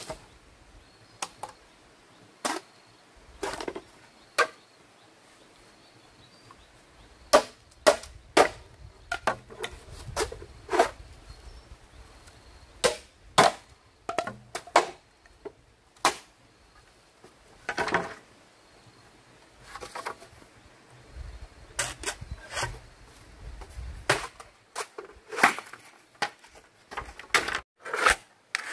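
Bamboo knocking and clattering in sharp, irregular knocks as poles are handled and dropped, with machete blows on bamboo near the end.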